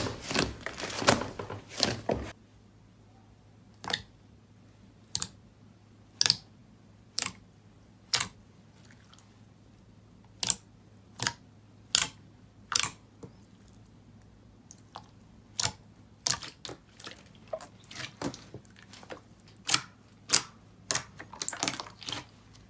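Slime being pressed and handled, giving a series of sharp pops and crackles: a dense run in the first two seconds, then single pops about once a second, coming closer together again toward the end.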